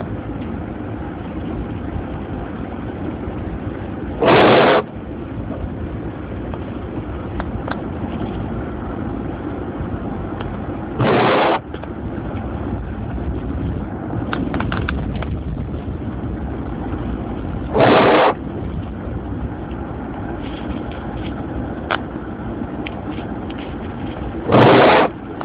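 Steady road and engine rumble heard from inside a car driving on snowy roads. About every seven seconds a loud half-second swish cuts across it, four times in all.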